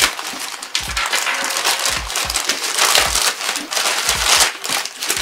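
Grey plastic mailer bag being torn open and crinkled by hand: irregular ripping and rustling of thin plastic, without a break.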